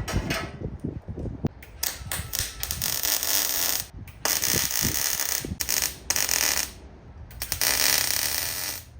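Hand metalworking on a strip of mild steel: repeated rasping, scraping strokes of about a second or two each, with clicks and knocks of the tool between them.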